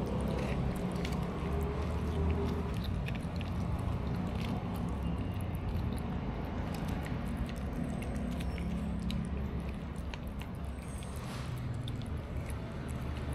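Cats chewing and eating meat from a plastic plate close by, a continual run of small wet smacks and clicks, over a steady low hum.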